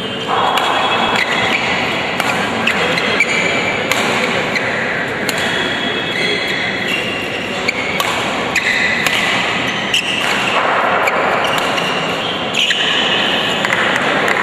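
Badminton rally: sharp racket strikes on the shuttlecock about once a second, with short squeaks of the players' shoes on the court floor over steady background chatter from the spectators.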